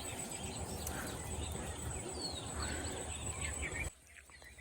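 Outdoor rural background noise with several short bird chirps over it, cutting off abruptly near the end.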